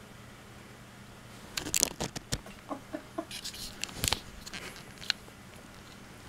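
Camera handling noise as a cat paws and bites at the camera and its string: irregular scuffs, rustles and knocks on the microphone. They start about one and a half seconds in and die away about five seconds in.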